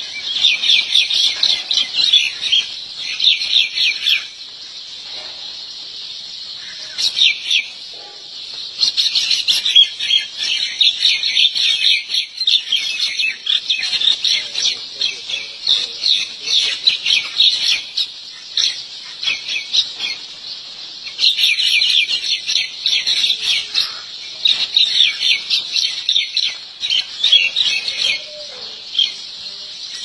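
Small birds chirping rapidly and densely in bouts of several seconds, with lulls about four seconds in and again about twenty seconds in.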